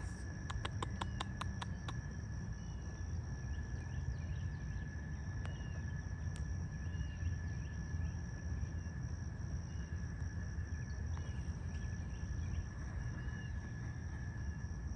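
Outdoor ambience: insects droning steadily, with two high even tones, over a low steady rumble. Faint short bird chirps come and go, and a quick run of about a dozen clicks sounds in the first two seconds.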